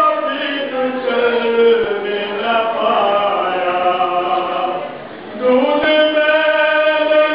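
Men's voices chanting together in long sung phrases with held notes, a religious mourning chant; the chant breaks off briefly about five seconds in, then a new phrase starts.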